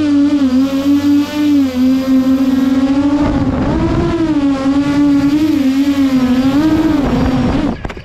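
iFlight Helion 10, a 10-inch FPV quadcopter, in flight: its motors and propellers make a loud, pitched buzz that wavers up and down as the throttle changes. The sound cuts off near the end.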